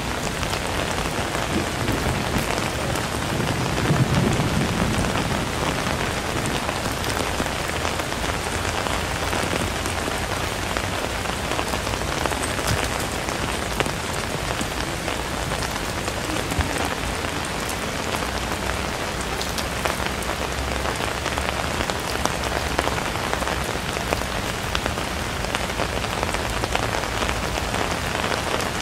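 Steady rain falling on the street, an even hiss with scattered sharp drop ticks, and a brief low rumble about four seconds in.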